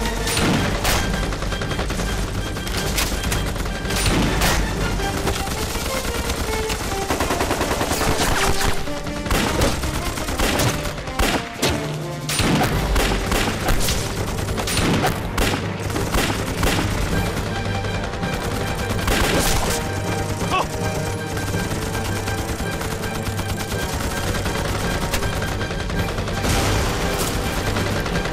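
Sustained firefight: many guns firing in rapid, overlapping shots and bursts, with machine-gun fire among them.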